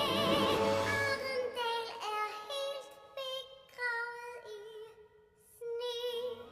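Female voices singing a musical-theatre duet in Danish, altered by a high, synthetic-sounding 'angel' voice effect. Held notes with vibrato over full accompaniment that thins out after about a second, a brief near-pause about five seconds in, then one last held note.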